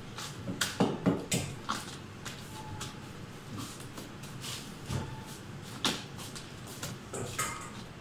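Long kitchen knife knocking and scraping on a plastic cutting board as thin salmon slices are cut and laid down: a quick cluster of sharp knocks in the first two seconds, then a few scattered ones.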